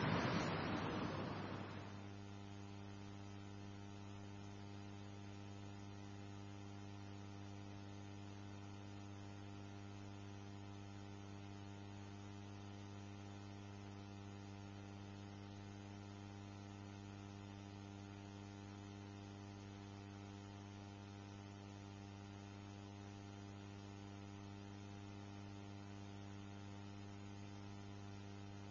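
Steady electrical mains hum, a low buzz with many even overtones. A noisy rush fades out over the first two seconds.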